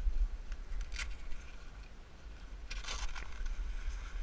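Heavy fabric boat cover rustling and scraping against the hull as it is pulled off, with two short bursts, about a second in and a longer one near three seconds in, over a steady low rumble.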